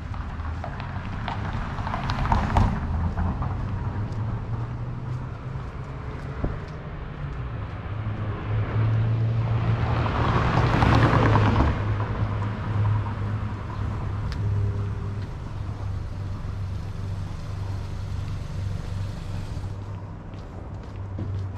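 Street traffic. A car passes close by around the middle, its noise swelling and then fading, after a shorter pass near the start. A steady low hum and faint ticks of footsteps run underneath.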